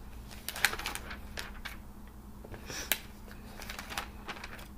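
Magazine pages being handled and turned: crisp paper rustles and crinkles in short clusters, sharpest about half a second in and just before three seconds in.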